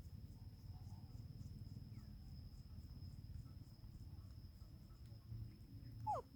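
Faint field ambience: a steady high insect drone over a low rumble, then a brief squeal falling in pitch near the end, a call from the baby monkey.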